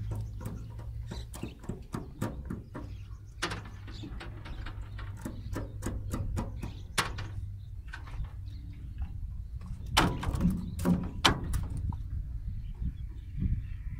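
Irregular knocks and rattles from a fish trap being hauled and handled at the side of a boat, with the loudest knocks about ten to eleven seconds in.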